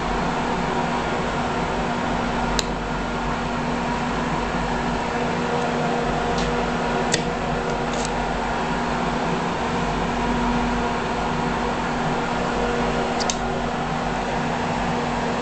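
Steady mechanical hum of a fan, with a few faint, short clicks.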